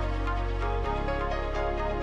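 Electronic background music with a sustained bass line that changes chord a little under a second in.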